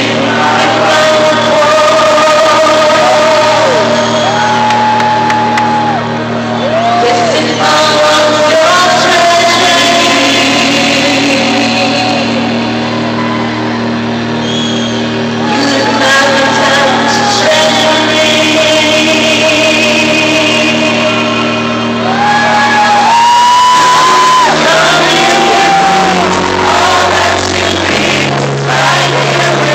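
Live female vocal singing long held notes that glide between pitches over sustained piano chords, amplified in a large arena, with audience shouts and whoops mixed in.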